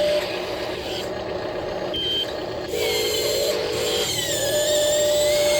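Electric motors of a miniature excavator whining: a steady tone that breaks off and returns, with higher whines gliding up and down in pitch from about three seconds in.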